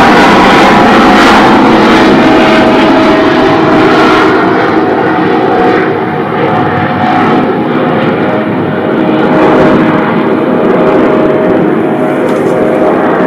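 DJI Mavic Mini drone's propellers running with a loud, steady whine. The high hiss drops away about four seconds in.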